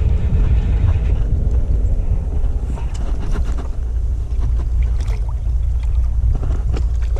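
Wind rumbling steadily on the microphone of a fishing boat on open water, with a few brief sharp sounds near the middle and end.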